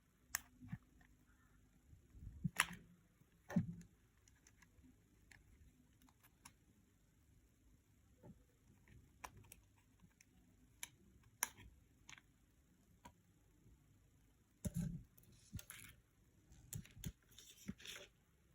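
Scattered light clicks and taps of tweezers and the small plastic parts of a Tecno T301 phone being handled and pried apart during disassembly. The clicks come more thickly in the last few seconds.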